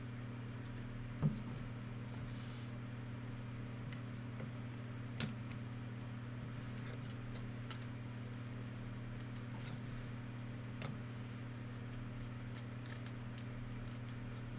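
Trading cards being handled: a few soft clicks and taps, the sharpest about a second in and others near five and eleven seconds, over a steady low hum.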